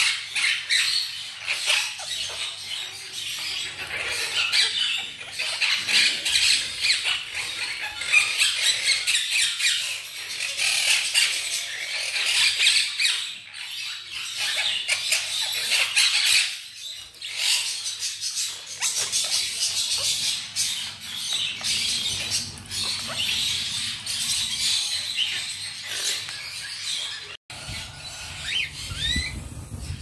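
A flock of caged monk parakeets chattering and squawking in a continuous, dense, high-pitched jumble. Near the end the sound cuts off and gives way to a few rising whistled calls from cockatiels.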